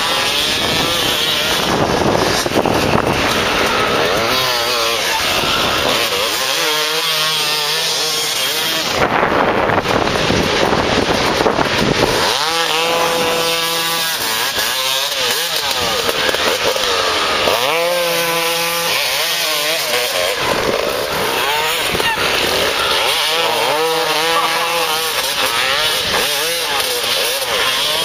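Suzuki RM two-stroke dirt bike engines revving hard and high, rising and falling in pitch as the throttle is worked. The sound swells several times as a bike passes close.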